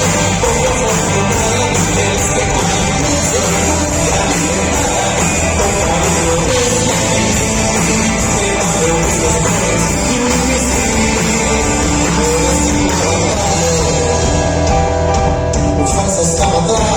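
Rock band playing live, with electric guitar and a singing voice over a steady beat.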